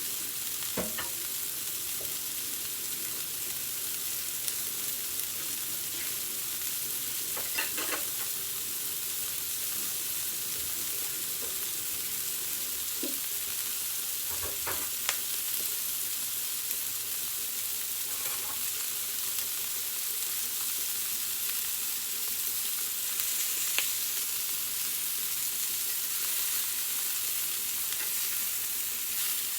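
Food sizzling steadily as it fries in a hot pan, with a few sharp clicks of a utensil against the pan.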